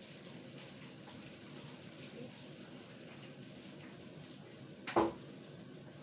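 Coated chicken pieces deep-frying in hot oil: a steady sizzle, with one brief sharp sound about five seconds in.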